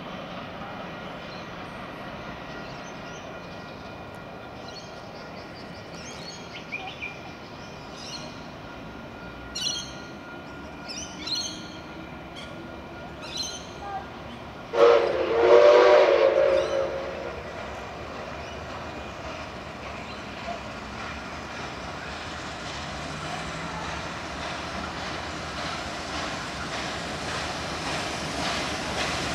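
Whistle of steam locomotive 5917 sounding one blast of about two seconds, several tones at once, about halfway through; it is the loudest sound. The running noise of the approaching steam train then grows steadily louder toward the end.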